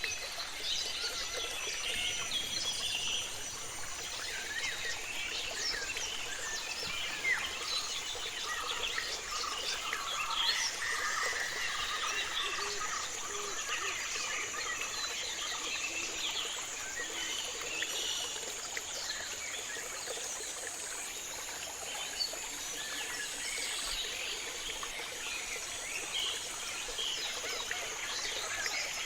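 Tropical rainforest ambience: many birds chirping and calling over a steady, high-pitched insect drone that shifts pitch slightly a few times.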